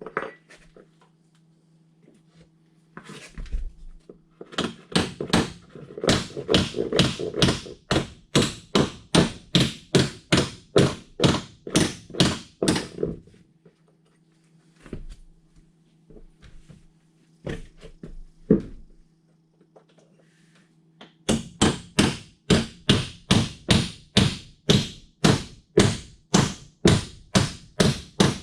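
A hand tool worked in steady strokes, about two to three a second, in two long runs: one starting a few seconds in and one after a pause past the middle. A few scattered knocks fall between the runs, and a steady low hum runs underneath.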